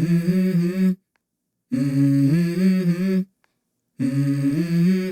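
Music: unaccompanied hummed vocal melody in three short phrases, stepping between a few notes, with dead-silent gaps between them. It is the intro of a hip-hop style song.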